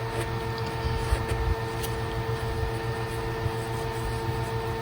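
A steady machine hum holding several constant pitches, with a few faint light ticks.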